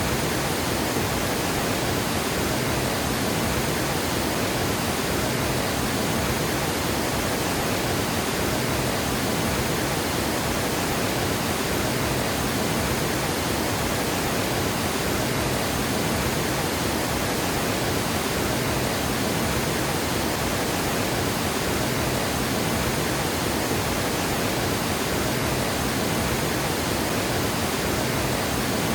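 Water pouring over a dam spillway: a steady, unbroken rushing.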